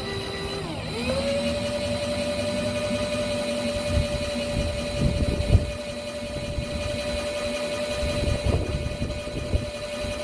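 Electric drill running in reverse with a left-handed drill bit, boring into a bolt broken off in an engine head. The motor whine dips briefly about a second in, then settles at a higher steady pitch, with a few low knocks partway through.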